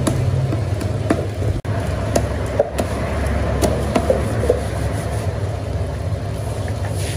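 A large knife scraping scales off a fish and cutting it on a wooden chopping block, with a few sharp taps. Under it runs a steady low engine rumble.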